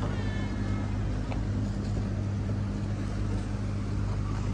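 Steady low engine drone, with a brief high chirp right at the start and a faint click about a second in.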